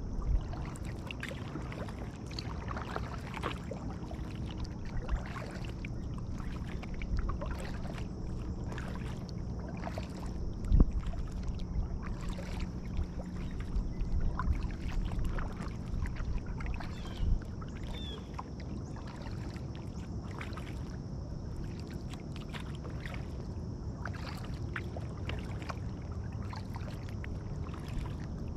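Kayak being paddled: the paddle working the water in small splashes and drips over a steady low rush, with a sharp knock about eleven seconds in and a smaller one a few seconds later.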